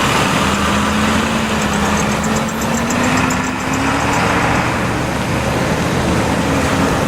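A vehicle engine running steadily, its pitch slowly creeping upward, with a dense noisy rumble underneath. It starts and cuts off abruptly.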